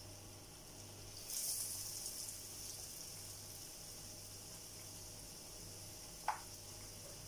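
Batter-coated banana slice going into hot oil in a small pan: the frying sizzle surges about a second in, then settles to a steady sizzle. A single short click near the end.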